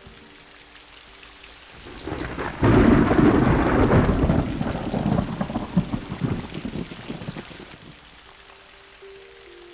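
A thunder-and-rain sound swells in about two seconds in, peaks loud, then dies away over the next several seconds. Near the end, crystal singing bowls begin to ring with steady sustained tones.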